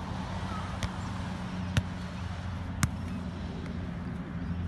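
Soccer ball hitting grass and boot: three sharp thuds about a second apart, then a fainter one, over a steady low hum.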